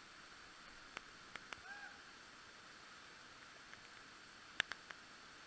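Faint, heavily muffled steady rush of a waterfall pouring over rock, with a few sharp clicks and a short rising-and-falling chirp a little under two seconds in.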